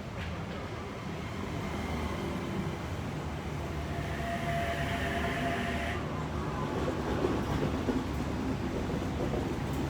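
Sydney Trains OSCAR H set electric multiple unit pulling into the station, a steady low rumble that grows slowly louder. A high whine comes in about four seconds in and stops sharply two seconds later.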